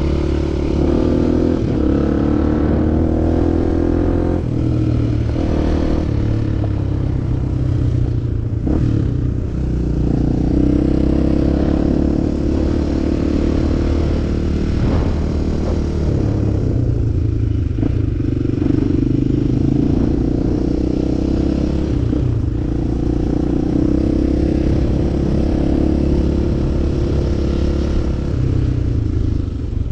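Enduro motorcycle engine running with the throttle opening and closing, its pitch rising and falling, with a few sharp knocks and some clatter.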